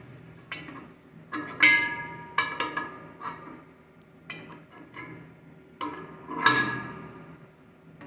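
Adjustable wrench snugging a brass adapter onto a refrigerant cylinder's valve: a string of metallic clinks and knocks, each ringing briefly, the loudest about a second and a half in and near the end.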